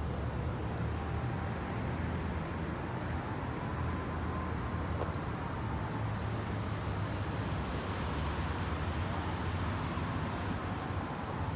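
Steady distant city traffic rumble with no single sound standing out, and a faint high tone that slowly rises and falls in the middle and near the end.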